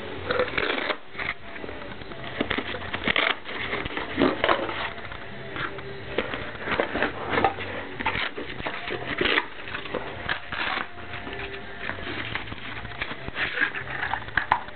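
Small metal hand tools and lockpicking gear clicking, clinking and knocking as they are handled and shifted around in a compartmented carry case, in irregular bursts throughout.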